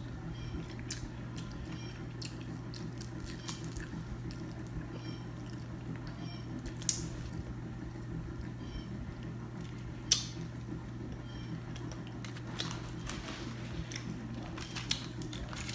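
A person eating shrimp from a seafood boil: close chewing and biting, with scattered small clicks and a couple of sharper cracks as shells are picked apart by hand, about 7 and 10 seconds in. A steady low hum runs underneath.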